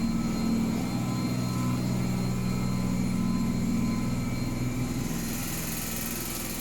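Washing machine running with a loud, steady droning hum of low tones, the noise the owner calls noisy.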